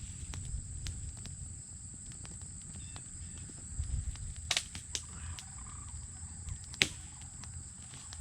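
Wind rumbling on the microphone over a steady high hiss, with scattered sharp clicks and snaps, the loudest about seven seconds in.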